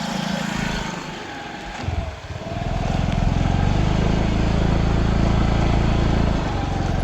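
Scooter engine running while riding, easing off about a second in and picking up again from about two and a half seconds.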